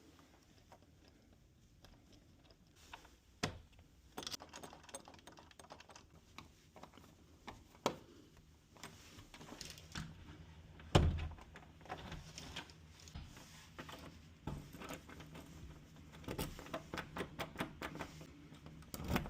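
Small metal clicks, taps and rattles of Schlage doorknob hardware being fitted to a door, irregular, with one heavier knock about eleven seconds in and a quick run of clicks near the end.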